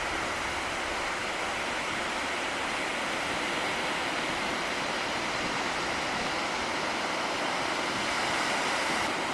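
Ocean surf washing on a beach, heard as a steady, even rush of noise with no separate breaks standing out.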